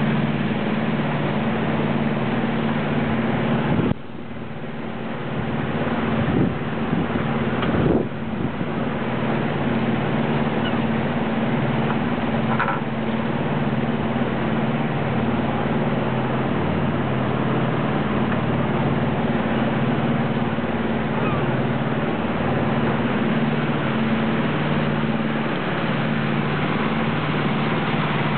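Sailboat's engine running steadily under way, a constant hum over the rush of water and wind. It drops briefly about four seconds in.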